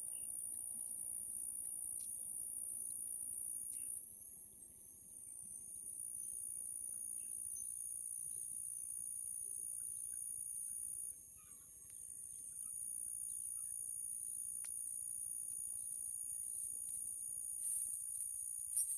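A steady, very high-pitched whine or hiss with no lower sound beneath it; no rain is heard.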